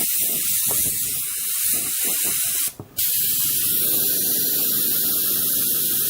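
Compressed air hissing steadily out of a Master TC-40T airbrush compressor's tank as the pressure is bled down toward the point where the compressor cuts back in. The hiss breaks off for a moment just before three seconds in, then resumes.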